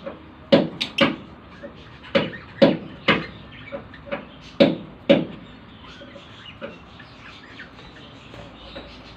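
Lovebirds giving short, sharp chirps, mostly in quick pairs about half a second apart, loud through the first five seconds and then fainter and scattered.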